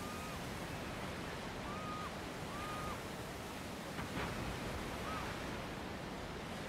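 Steady wash of sea surf and wind, with four short, flat whistled bird calls, three within the first three seconds and one about five seconds in, and a soft knock about four seconds in.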